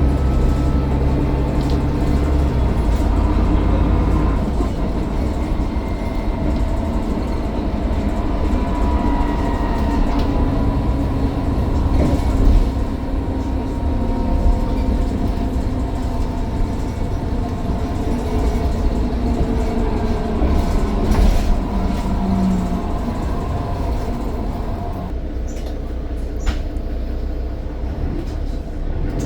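Mercedes-Benz Citaro O530 bus on the move, its diesel engine running over a low rumble with a turbocharger whine that rises and falls in pitch, and a few brief rattles and knocks.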